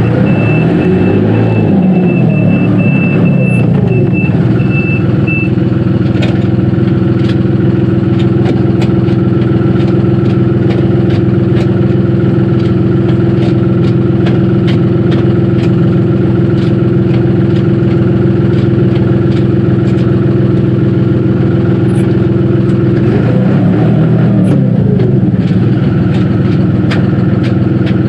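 Dongyang TX653 tractor's diesel engine running steadily as it drives, with its reverse warning beeper sounding for the first five seconds or so and then stopping. Twice, near the start and again near the end, a whine rises and falls in pitch over the engine.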